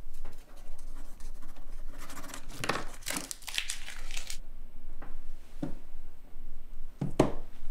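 Paper tearing and crinkling: about two seconds of dense scratchy rustling in the middle, then two light knocks.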